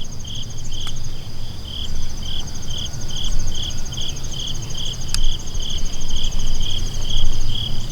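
Crickets chirping: one in an even chirp about twice a second, another in a faster, higher trill that pauses briefly about a second in, over a steady low rumble, with two faint clicks.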